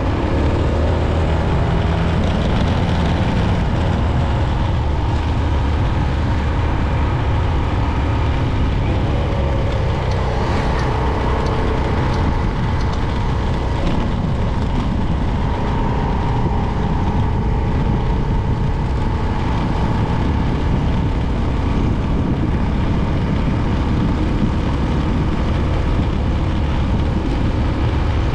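Motor vehicle running on the move: a loud, steady rumble of engine and road noise with faint tones that rise and fall slightly.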